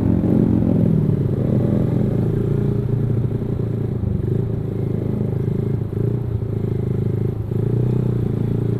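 Motorcycle engine running under way, a steady low engine note with small rises and dips in pitch and a couple of brief dips in level.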